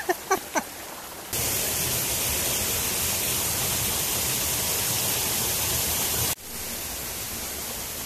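Rushing water of a waterfall and stream, a loud steady rush that starts and stops abruptly at cuts, then a softer rush of flowing water near the end.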